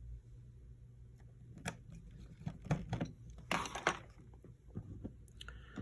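Light, irregular clicks and taps of small tools and phone parts being handled, with a short scraping rustle about three and a half seconds in, over a low steady hum.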